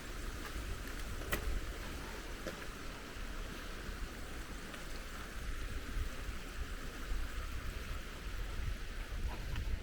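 Steady rush of a mountain stream or falls, with a low rumble underneath and a single sharp click about a second in.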